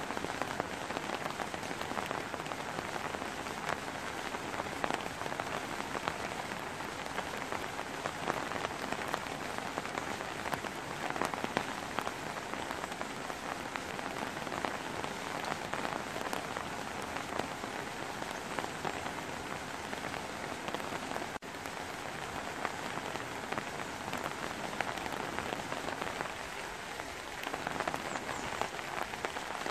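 Steady rain falling over trees, a dense even patter of countless drops, with a momentary dip about 21 seconds in.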